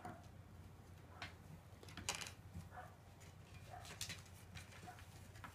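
Kittens playing on a floor mat: faint scattered scuffs, rustles and light taps over a low steady hum, the loudest scuff about two seconds in.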